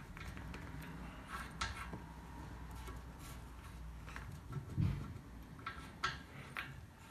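Chrome radiator valve and its union nut being handled and turned by hand: scattered light metallic clicks and taps, with a dull knock about five seconds in and two sharper clicks near the end.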